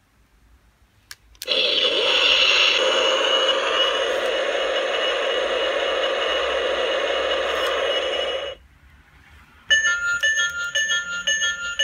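Electronic sound effects from an Ultraman Cosmos toy figure's small built-in speaker, set off by moving the figure. After a click, a loud hissing effect plays for about seven seconds and stops suddenly. Near the end a quick run of repeating electronic beeps starts.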